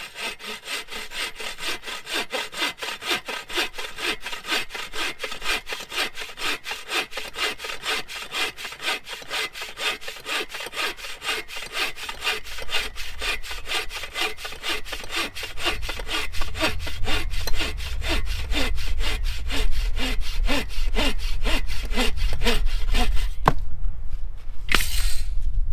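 Hand saw cutting through a wooden pole in steady, even back-and-forth strokes. The sawing stops about 23 seconds in, followed by a click and a short burst of noise.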